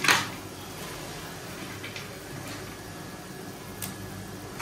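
Fried fish pieces dropped into a steel kadai of simmering curry gravy: a loud splash right at the start and smaller plops near the end, over a low, steady bubbling of the gravy.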